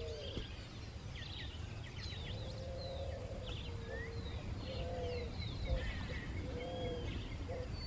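Several birds calling: many short high chirps, whistles and fast buzzy trills, with a low arched call repeating roughly once a second, over a steady low rumble.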